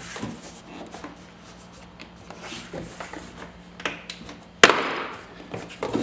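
Plastic retaining clips of a Tesla Model 3 door trim panel popping loose as the panel is pulled off the door by hand. There are scattered clicks and creaks, then one loud sharp snap about three-quarters of the way through.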